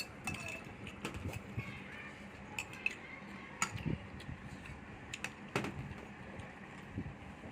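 Scattered light clicks and clinks of cutlery and dishes, irregular and spaced out, with about a dozen sharp strokes.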